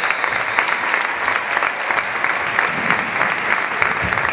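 Steady applause: many hands clapping at once in a dense, even patter.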